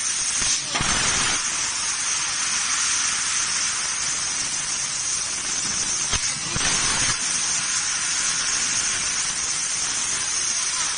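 4 kW laser cutting head cutting 12 mm stainless steel sheet: a steady hiss of the assist-gas jet blowing through the nozzle and the cut. It grows briefly louder about a second in and again around six and a half seconds.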